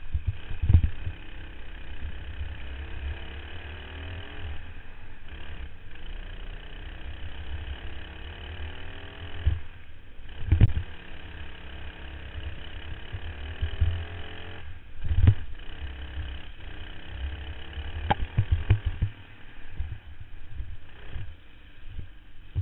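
Racing kart engine heard from an onboard camera, revving up again and again as the kart accelerates out of the corners and down the straights. Heavy wind buffeting and jolts hit the microphone, with several loud low thumps.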